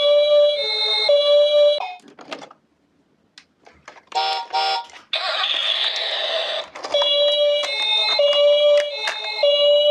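Toy ambulance's electronic two-tone "pee-po" siren, alternating between a higher and a lower note. It stops about 2 seconds in, leaving a pause with a few clicks. Two short beeps and about a second and a half of hissing follow, and the siren starts again about 7 seconds in.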